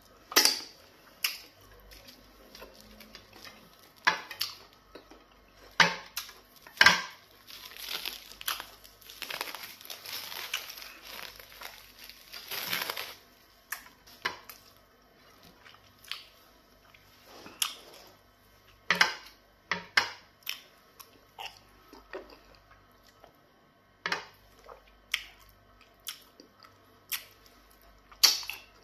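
A man eating pounded yam fufu with black soup and goat meat by hand: chewing with sharp smacks every second or two, and a longer, busier stretch of squishing and tearing noise about eight to thirteen seconds in.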